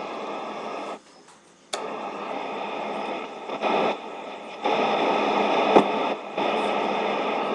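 Zenith portable multiband radio giving static and hiss as it is tuned between stations, with no programme coming through. The hiss cuts out briefly about a second in, and there are a few sharp clicks.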